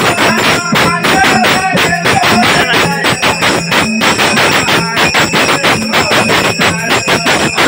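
Nimadi folk devotional music: a mridang (double-headed barrel drum) beating a fast, dense rhythm, with jingling small cymbals and a steady low tone held beneath.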